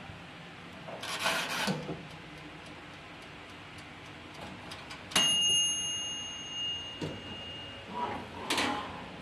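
Small toaster oven's mechanical timer: the knob is wound with a brief rasp, the clockwork ticks faintly, and about five seconds in the bell strikes once with a single ringing ding that fades over two seconds or so, signalling the timer has run out. Near the end the oven door is pulled open with a short scraping rattle.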